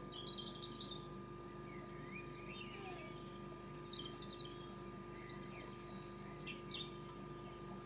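Faint birdsong: small birds chirping and twittering in short, scattered phrases, the busiest and loudest burst about six seconds in, over a steady hum from the tape playback.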